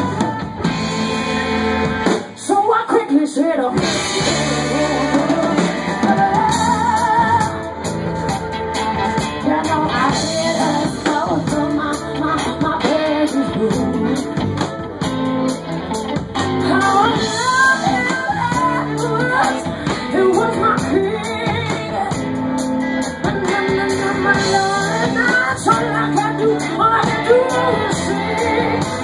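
A rock band playing live, with a lead singer over guitar, bass and drums.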